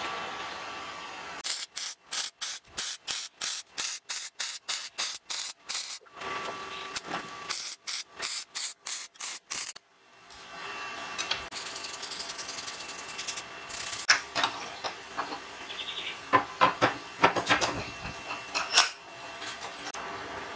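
Stick (arc) welding on a steel disc and tube: the arc crackles in a fast run of short on-off bursts, about four a second, then settles into a steadier crackling hiss about ten seconds in, with sharp pops and cracks in the later part.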